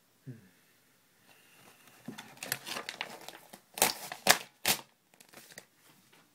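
Paper pages of a paperback book being torn and crumpled by hand, with a rising crinkle and then three loud sharp rips close together about four seconds in.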